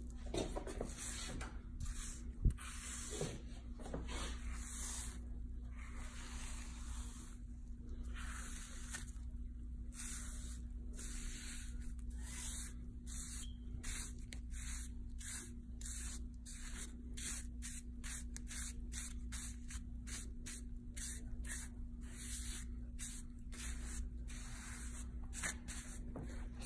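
Soft repeated swishing strokes through wet hair as a colour wash is brushed in, about two strokes a second in the second half, over a steady low hum.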